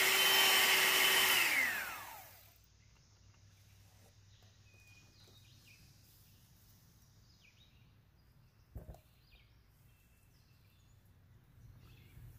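Electric hand mixer beating egg whites in a glass bowl; about a second and a half in it is switched off and its motor whine falls in pitch as it spins down. Then faint light sounds of a spatula in the whipped whites, and a single sharp knock about nine seconds in.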